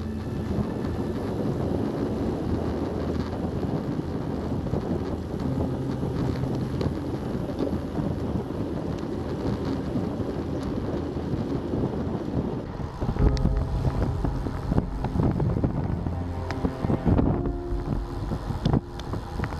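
Wind rushing over the microphone of a camera riding along on a moving bicycle, with road noise underneath. About 13 seconds in, the sound grows rougher and louder, with a steady low hum and a few knocks.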